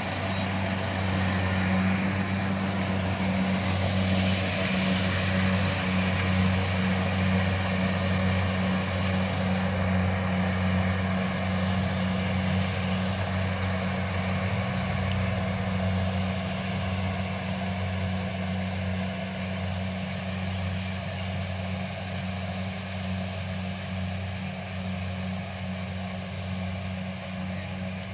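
Kubota DC-70 rice combine harvester running steadily, its diesel engine a constant low hum under a broad machinery noise, growing a little quieter toward the end.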